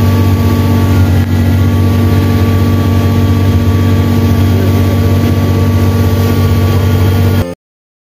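Engine of an amphibious Duck Tour vehicle running steadily, heard loud from on board. The sound cuts off abruptly near the end.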